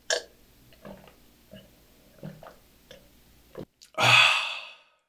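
Logo intro sound effects: a string of short, quiet blips and taps, then one louder noisy hit lasting under a second about four seconds in, as the logo changes.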